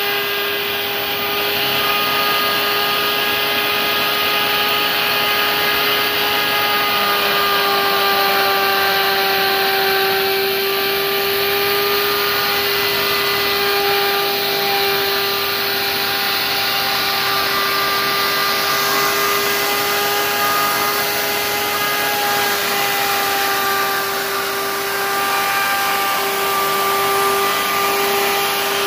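Electric plunge router running with a steady whine as its collared bit cuts a pattern into a wooden board.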